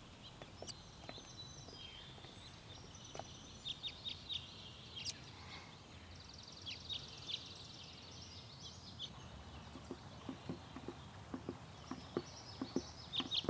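Small birds chirping over a steady low outdoor background, with a quick run of repeated chirps about halfway through. From about ten seconds in, footsteps tap along a walkway.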